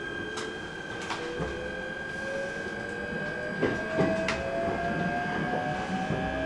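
Electric local train pulling away, its traction motors under the floor whining steadily upward in pitch as it gathers speed, over a steady high tone. A few sharp clacks come from the wheels running over the rails.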